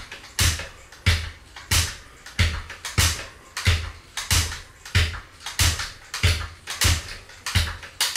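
PROiron mini stepper's pedals banging down on their bottom stop with every step, a regular clacking knock about one and a half times a second. The step is short, so each stroke bottoms out hard.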